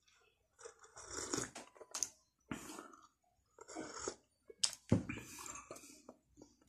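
Close-up mouth sounds of a person sipping from a cup and chewing, irregular wet slurps with a few sharp clicks, stopping abruptly at the end.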